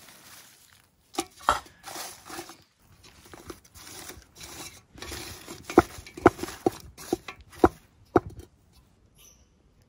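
Handfuls of stripped hemlock bark gathered off the ground and put into a metal stock pot: rustling and crackling with repeated sharp knocks as the pieces land in the pot, dying away about a second before the end.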